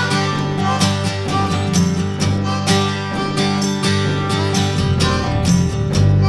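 Background music: strummed acoustic guitar with a steady rhythm, in a country style.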